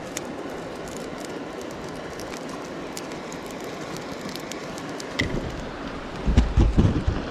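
Steady rushing of a river running over a gravel bed. Near the end, wind buffets the microphone in low rumbling gusts.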